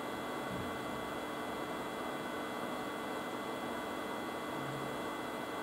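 Steady low hiss with a faint electrical hum: room tone.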